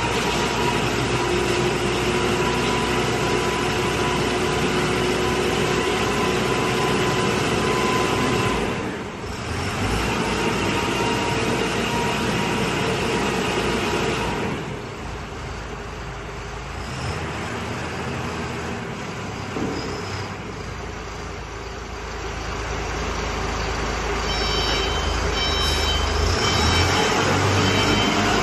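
Self-loading concrete mixer's engine running, easing off for several seconds around the middle and growing louder again near the end. A steady whine sits over it for the first eight seconds or so.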